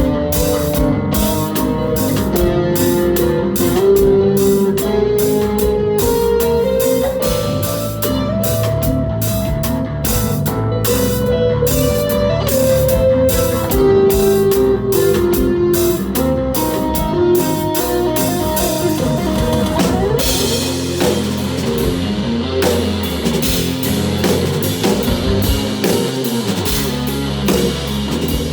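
Live instrumental rock played on Chapman Stick, touch guitar and drums: a stepping melodic line over a steady drum beat. About twenty seconds in the playing turns denser, with a wash of cymbals.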